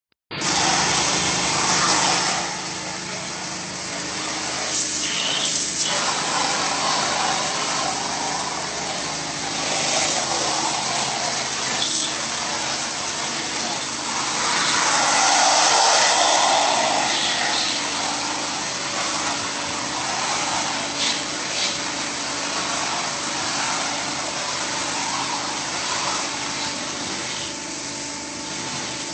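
Pressure washer running: a steady pump hum under the hiss of the high-pressure water spray, which swells louder about halfway through.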